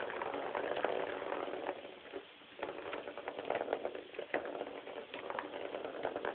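A ball rolling and rattling around the plastic track of a circular cat toy as a cat bats it, a clicking rumble that dies down briefly about two seconds in and then picks up again.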